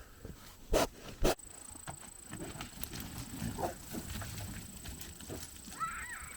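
Two loud knocks about half a second apart, then pigs grunting at their feed, with a short high rising-and-falling call near the end.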